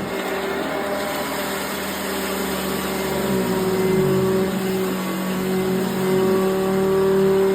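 A 1992 Eureka upright vacuum cleaner running steadily while it is pushed over carpet picking up dry oats. Its motor hum dips in pitch and recovers around the middle.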